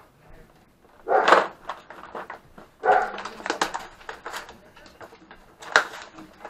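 Plastic tray of a tap and die set being worked loose and lifted out of its case, with sharp clicks and rattles from about three to six seconds in. Two short loud vocal sounds come about a second and three seconds in.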